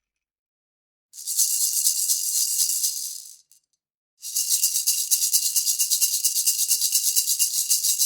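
A baby's toy rattle being shaken in two bouts, about two seconds and then about four and a half seconds, each a quick, even rattle with a faint steady ring beneath it.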